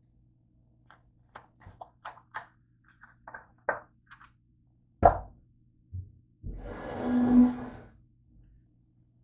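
A run of small clicks and ticks, then a sharp knock and about a second and a half of rustling, scraping noise as a plastic soda bottle is handled and set down.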